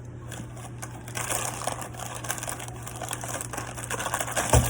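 Rustling plastic packaging and the clicking and clatter of small juice bottles being handled and set in place, with one louder knock near the end.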